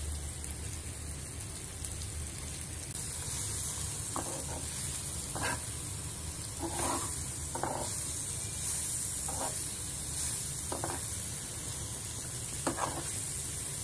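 Raw mango slices sizzling in hot oil in a pan, the sizzle growing louder about three seconds in, as a steel ladle stirs spices through them with short scrapes against the pan every second or two.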